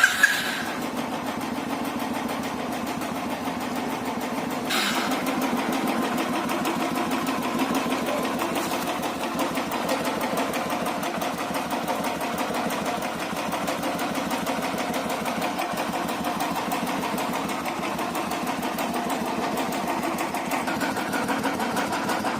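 Royal Enfield Thunderbird 350's single-cylinder engine idling steadily with a fast, even beat, just after a service that replaced valve and valve guide parts and dealt with a harsh hydraulic tappet noise.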